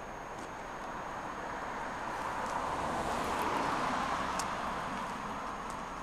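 A road vehicle passing by: a rush of tyre and engine noise that swells to its loudest about halfway through, then fades away.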